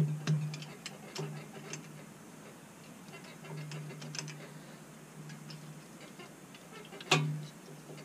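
Hand ratchet clicking in runs as bolts are backed out of a 6.4 Hemi engine block during crankshaft removal, with one sharp, louder snap about seven seconds in.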